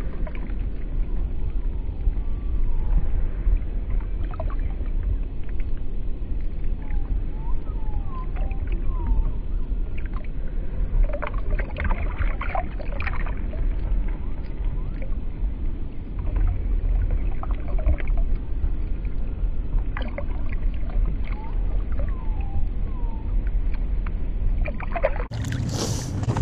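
Water sloshing and bubbling around a striped bass being revived, heard muffled through an action-camera microphone with water in its ports: a steady low rumble with small bubbling gurgles. Near the end the sound suddenly clears into a louder, brighter rush.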